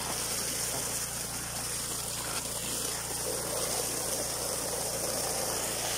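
Water gushing hard from a pipe outlet into a plastic tub, splashing steadily, over the steady running of the 7-horsepower diesel engine that drives the water pump.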